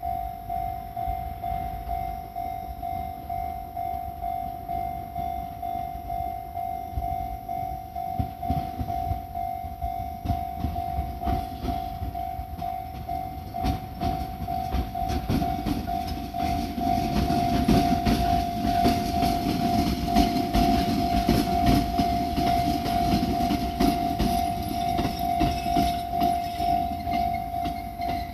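Japanese level crossing alarm dinging steadily in a quick repeating beat, while a Fuji Kyuko Line train rolls over the crossing with its wheels clicking on the rails. The train's rumble grows louder about halfway through.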